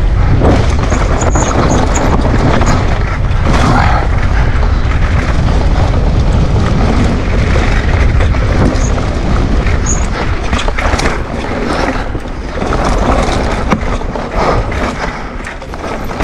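Downhill mountain bike at speed on a dry dirt trail: wind rumbling over the camera microphone, mixed with the tyres on dirt and the frequent clatter and knocks of the bike over roots and rocks.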